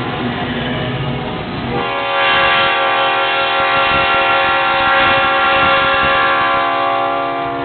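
Metra commuter train's air horn sounding one long chord of several tones. It starts about two seconds in and holds steady for nearly six seconds, over the running noise of the train.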